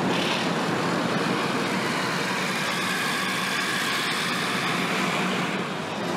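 Steady mechanical noise of a car assembly plant floor: an even hum of machinery and ventilation.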